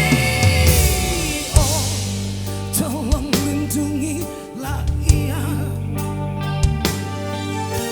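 Live rock band music: a melody line wavering with vibrato, over sustained bass notes and drum hits.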